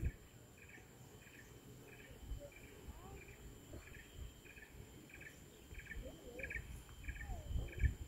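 Insects chirping: a short pulsed chirp repeating about three times every two seconds over a steady high-pitched insect drone, with a few faint short whistles and low rumbles that grow louder near the end.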